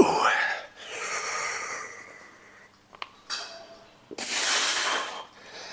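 A weightlifter straining through a heavy rep on a chest press machine: a loud grunt that rises in pitch and is held for about two seconds, then a long, forceful hissing exhale about four seconds in.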